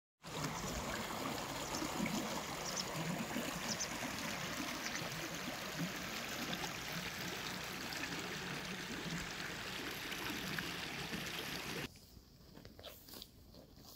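Steady rush of running water, like a stream, that cuts off suddenly about twelve seconds in, leaving a much quieter background with a few faint knocks.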